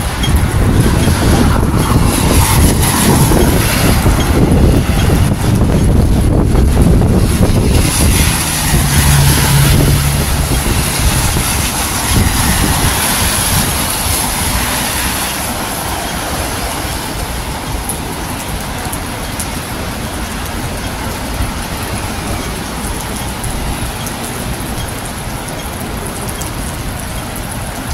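Gusty wind rumbling on the microphone over traffic noise from a wet road, loudest in the first ten seconds and then easing to a steadier hiss.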